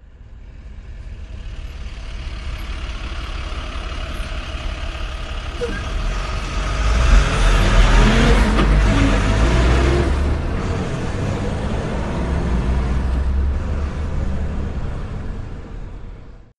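Ford Ranger pickup truck driving on a dirt track, its engine running with some revving over tyre noise. The sound fades in, is loudest about halfway through, and fades out near the end.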